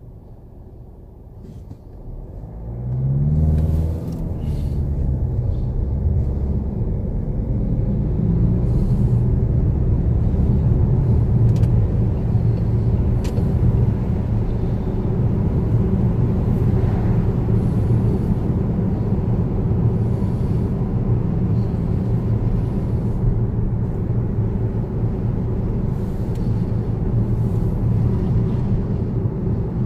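Car engine pulling away from a standstill, rising in pitch as it accelerates about three seconds in, then a steady drone of engine and tyre noise while driving, heard from inside the car.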